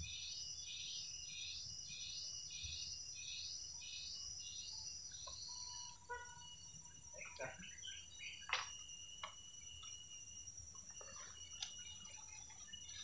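Swamp insects calling: a rhythmic pulsing call, about two pulses a second, that stops about six seconds in, over a steady high-pitched insect whine. Scattered short chirps and a few sharp clicks follow.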